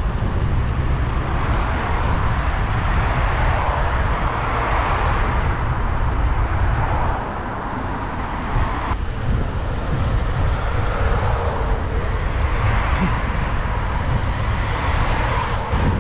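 Cars passing on the adjacent road, their tyre and engine noise swelling and fading twice, over a steady low rumble of wind on the microphone of a moving bicycle.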